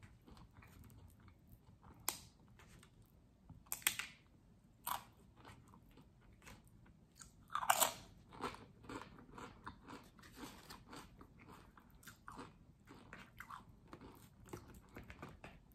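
A person biting into and chewing crisp, crunchy food close to the microphone: a few sharp crunching bites, the loudest about halfway through, then a run of steady chewing.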